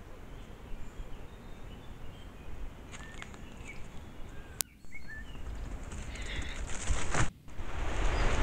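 Forest ambience picked up by a trail camera's microphone: steady low rumble and hiss with faint bird chirps in the middle. About four and a half seconds in there is a sharp click and the sound drops out briefly, and it drops out again near the end as the clips change.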